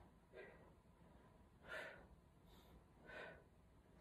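A man breathing hard in time with crunches, a faint breath with each repetition, three of them about a second and a half apart.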